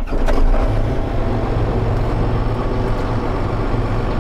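John Deere 7810's six-cylinder diesel engine running steadily, heard from inside the cab.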